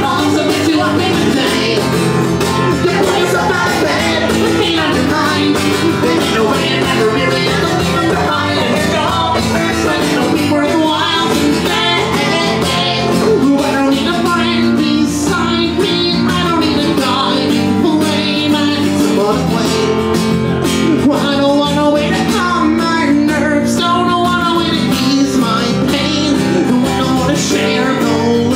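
Live acoustic music: a banjo and an acoustic guitar played together at a steady, even level.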